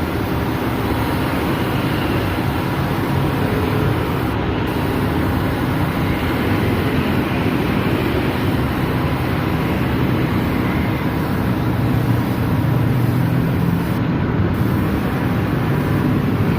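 Steady motor-vehicle noise: an engine running with continuous road or traffic noise, unchanging throughout.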